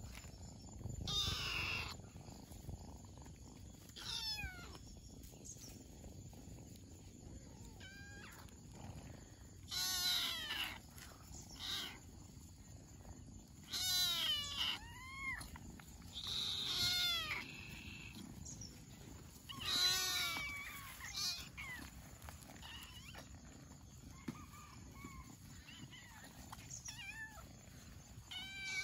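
Kittens meowing in short, high-pitched bouts of several calls each, spaced every few seconds, as they jostle one another to nurse.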